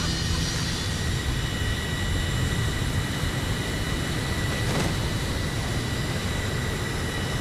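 Aircraft jet engine running steadily at high power: a loud, even rush of exhaust with a high steady whine over it.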